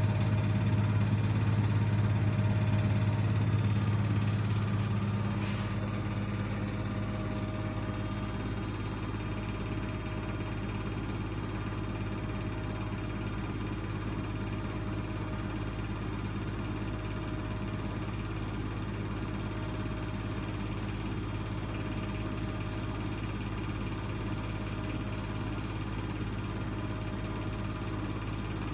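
Bosch WVH28360GB washing machine on its spin cycle, running with a steady low hum and a faint whir, the noise its owner calls funny when it spins. The sound gets quieter about five seconds in and then holds steady.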